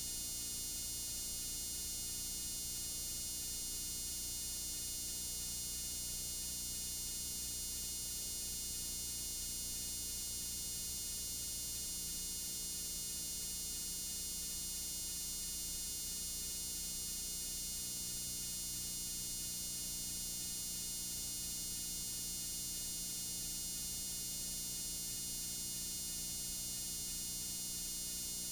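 Steady static hiss from a blank stretch of videotape, strongest in the highs, with a low hum and faint fixed tones underneath.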